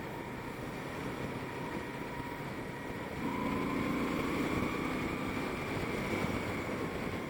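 Moto Guzzi V-twin motorcycle riding in traffic, under a steady rush of wind on the helmet microphone. About three seconds in the engine gets louder and its note rises as it accelerates, then settles.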